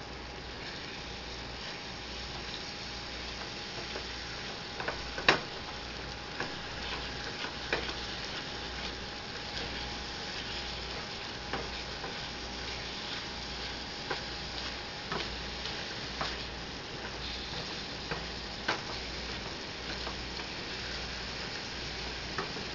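Ground venison sizzling in a skillet as a silicone spatula stirs it, with scattered scrapes and taps of the spatula against the pan; the sharpest tap comes about five seconds in.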